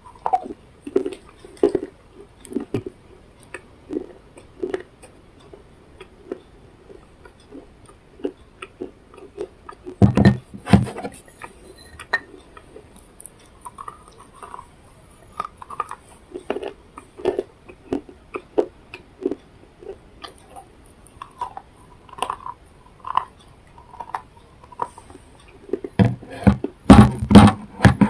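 A person chewing and biting food, a long run of short, irregular mouth sounds, with louder bursts about ten seconds in and again near the end.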